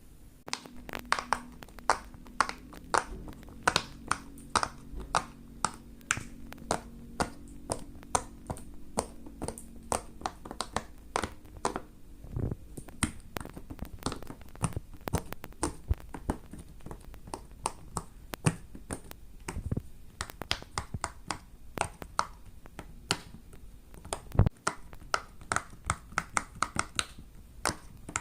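Silicone pop-it fidget toy having its bubbles pressed: a long, uneven run of small sharp pops and clicks, a few each second.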